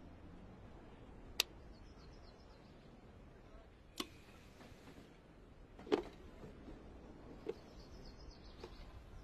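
Five sharp clicks and light knocks a second or two apart, over a faint hiss. One is the click of a VonShef mini rice cooker's rocker switch being pressed about four seconds in. The loudest, a duller knock, comes about six seconds in.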